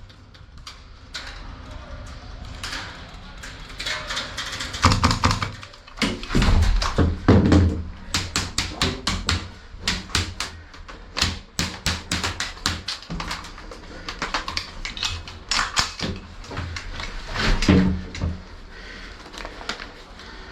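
Airsoft and paintball guns firing in a skirmish: many sharp, irregular pops, some in quick strings, thickest through the middle and later part.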